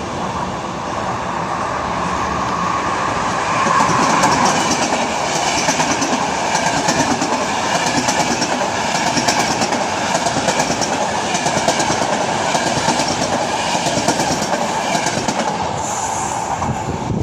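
Passenger train approaching and passing close along the platform, growing louder over the first few seconds, then its wheels clicking rhythmically over the rail joints as the coaches go by.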